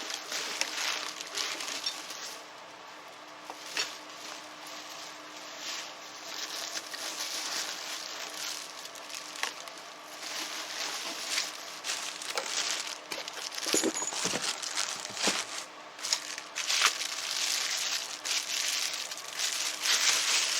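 Packing material in a shipping box being rummaged through by hand, crinkling and rustling in uneven bursts with scattered clicks, over a faint steady hum.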